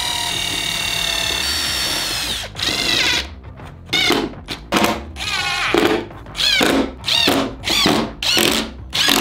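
Ridgid cordless drill drilling countersunk screw holes into wood. First comes one long whining run of about two and a half seconds that drops in pitch near its end, then a string of about eight short bursts, each spinning up and back down.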